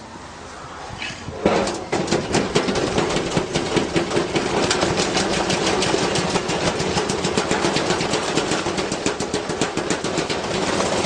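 Washing machine spinning up with a heavy object inside, knocking hard against the drum. A loud bang comes about a second and a half in, then the knocks quicken into a fast, steady rattle over a running hum.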